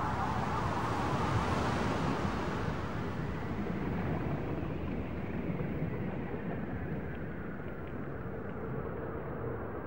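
Electroacoustic soundtrack drone of dense rumbling noise, with a hiss that swells about a second or two in and then sinks away, the whole slowly fading.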